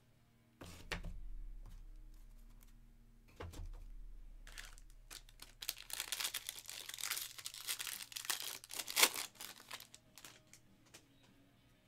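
Two dull thumps, then the plastic wrapper of a 2022 Topps Series 1 jumbo baseball card pack being torn open and crinkled for about five seconds, with one sharp rip near the end.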